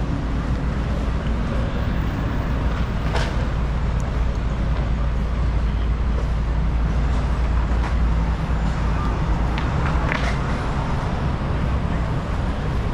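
Steady city traffic rumble with faint voices of passers-by, and a couple of brief clicks about three seconds and about ten seconds in.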